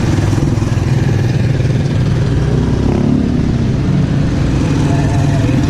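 Motorcycle engine running close by, with a brief rise in pitch about three seconds in.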